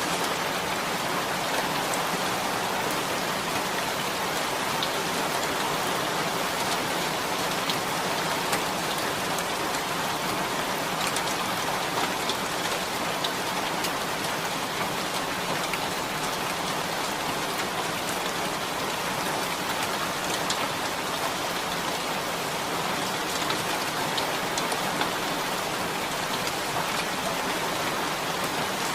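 Rain falling steadily on a tin roof: an even wash of rain noise with scattered sharper ticks of single drops striking the metal.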